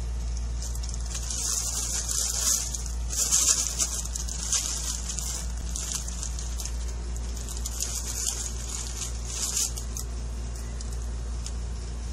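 Nylon cat play tunnel rustling in short bursts as it is moved and handled, loudest a few seconds in, over a steady low hum.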